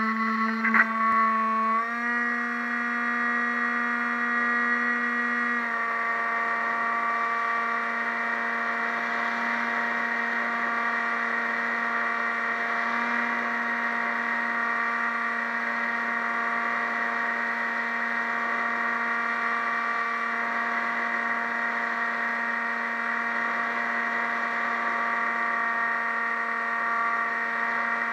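Radio-controlled model plane's motor and propeller running at full throttle in flight, a steady high whine. A sharp click comes about a second in. The pitch steps up slightly near two seconds and settles a little lower at about six seconds.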